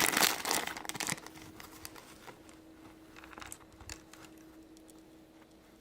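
Plastic packaging crinkling and rustling for about the first second, then quiet with a few faint taps and a faint steady hum.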